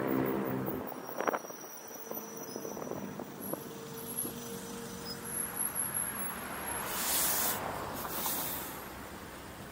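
City street traffic heard from a driving car: a passing vehicle's engine drone fades out in the first second, leaving quieter road noise with a few faint clicks and two short hisses near the end.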